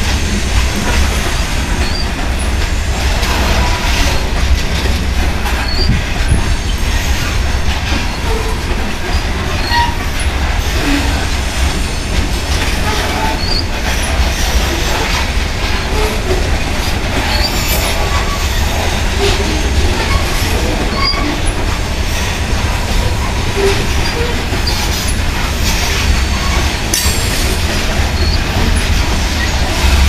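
Covered hopper cars of a freight train rolling past close by: a steady heavy rumble of steel wheels on rail, with wheel clicks and brief faint squeals here and there.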